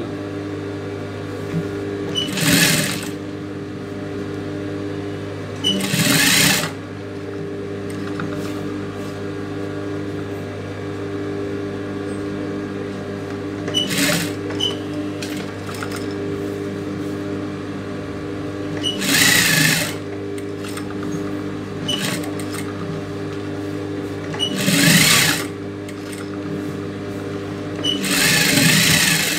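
Industrial sewing machine stitching in six short runs, each a second or less, over a steady low hum.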